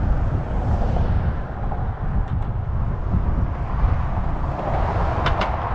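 Wind buffeting the microphone of a moving cyclist, a steady low rumble, with a couple of faint clicks about five seconds in.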